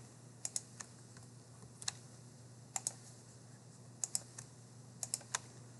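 About a dozen sharp, separate computer key and mouse clicks, several in quick pairs. They come as a cell range is selected and pasted, over a faint steady hum.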